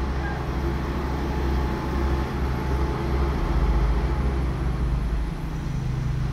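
Diesel engines of a LeeBoy asphalt paver and a dump truck running together in a steady low drone while paving, a little louder for a couple of seconds in the middle.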